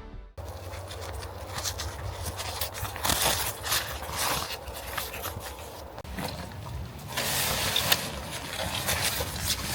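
Campfire crackling, with frequent small sharp pops over a steady hiss and a low rumble. The hiss grows louder about seven seconds in, and the sharpest pop comes near the end.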